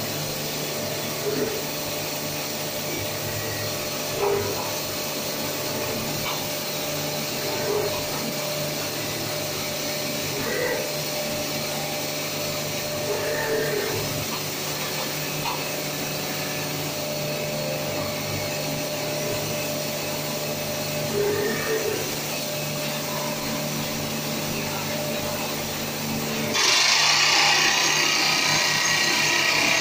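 Underground jumbo drill rig running with a steady mechanical hum made of several constant tones. About 27 seconds in, a loud hissing noise sets in over it.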